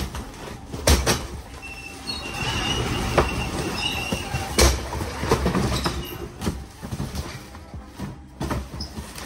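Cardboard boxes being handled and set down on a gravity roller conveyor, with sharp thuds as cases land. From about two to six seconds in there is a rattling rumble with a faint high squeal from the rollers as boxes run along them.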